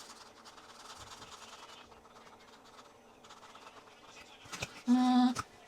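A marker drawing on a paper plate, with faint, uneven scratching and a few light taps. Near the end comes a short, loud squeak of steady pitch, lasting about half a second.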